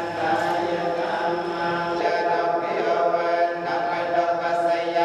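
A hall full of Buddhist worshippers chanting prayers together in unison, a steady recitation held on a few even pitches.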